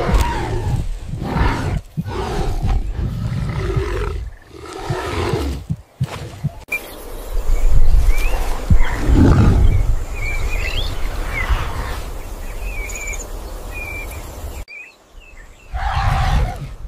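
Wild animal roars and deep guttural calls, repeated through the first six seconds and again near the end. In the middle stretch birds chirp over a loud, deep roar.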